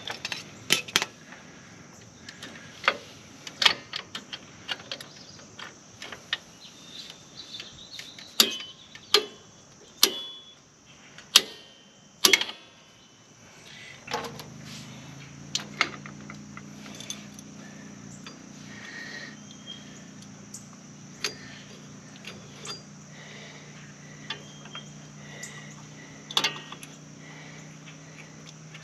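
Metal clinks and clicks of drum brake hardware (shoes, return springs and tools) being handled on a Jeep Wrangler TJ rear brake during reassembly, thick over the first half and sparse after. A low steady hum sets in about halfway through.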